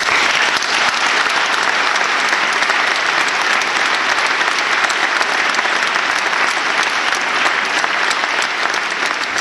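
Audience applauding: dense, steady clapping that starts suddenly.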